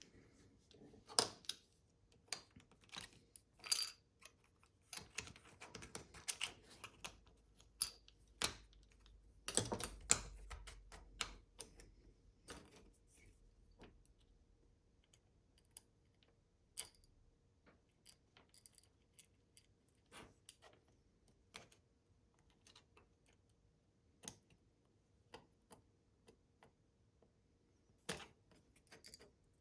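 Irregular small clicks and taps of a car remote key's plastic shell and small parts being handled and fitted together, more frequent in the first half and sparser later.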